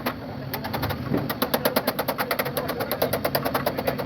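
Rapid, even tapping at about ten strokes a second over a low steady hum, with a brief pause just after the start.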